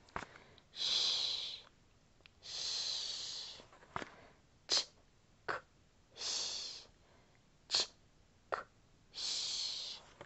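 A woman saying the phonogram sounds without voicing them: a long 'sh' hiss four times, with short 'ch' and 'k' bursts between the later hisses.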